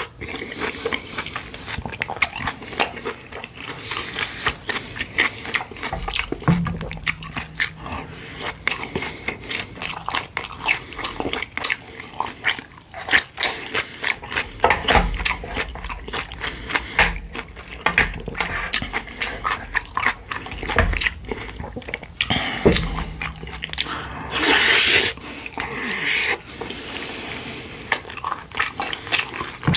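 Close-miked eating sounds of pork-bone soup and side dishes: wet chewing and lip smacking, many quick sharp clicks, with a longer noisy stretch about three-quarters of the way through.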